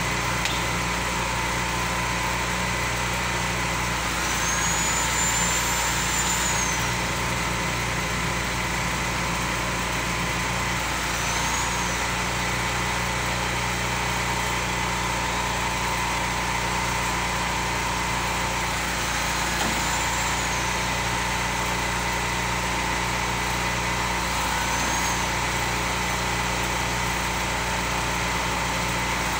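Steady drone of an idling motor-vehicle engine, unchanging throughout, with a faint high whine that rises and falls a few times.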